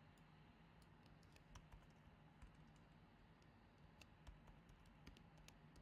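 Faint typing on a computer keyboard: light key clicks at irregular spacing.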